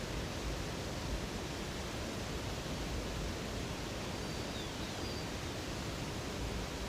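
Steady rush of flowing water, even and unbroken. A bird chirps faintly a few times about two-thirds of the way through.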